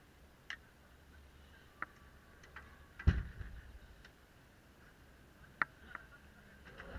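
Chairlift ride into the top station: a few scattered sharp clicks and one heavier, deeper thump about three seconds in.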